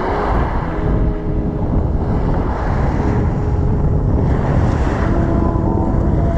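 Strong wind buffeting the microphone over choppy water, a heavy, uneven low rumble.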